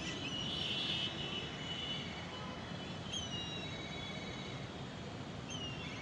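Birds calling over the steady background noise of a city: a cluster of high chirps in the first second, then two short falling whistles, about three seconds in and again near the end.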